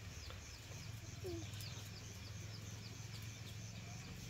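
Chicks peeping: a steady string of short, high, falling peeps, about three a second.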